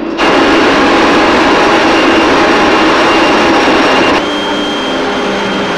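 Leaf blower starting up and running at full power: a loud, steady rush of air with a faint whine. About four seconds in it drops somewhat in level and a higher steady whine comes through.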